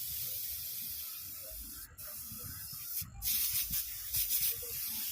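Spray nozzle of a home-made mini air compressor hissing as it sprays. The spray stops for a moment about two seconds in and again about three seconds in, then comes back louder and pulsing.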